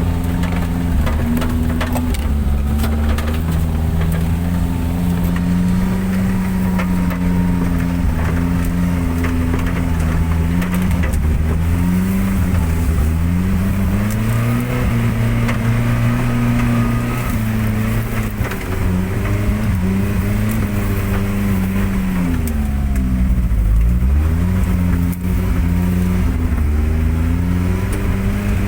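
Daihatsu Gran Max van engine running under changing throttle on a rough off-road track, its note dropping and climbing again several times, with frequent knocks and rattles over it.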